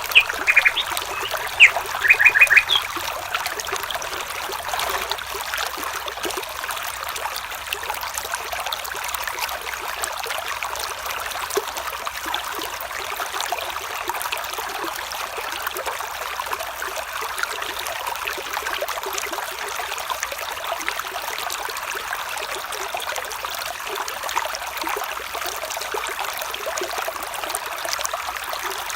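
Water trickling steadily, like a small stream. Over it, a bird gives a few short, quick chirps in the first few seconds.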